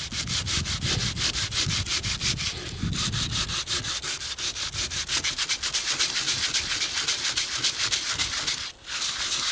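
600-grit sandpaper rubbed by hand over a cured epoxy patch on a fiberglass boat deck, in quick, even back-and-forth strokes. The rasping pauses briefly near the end.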